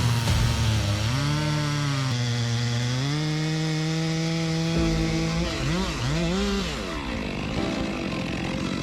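Chainsaw running at high speed in a cut, its engine pitch held steady, then dipping and rising several times in the middle and sagging low near the end.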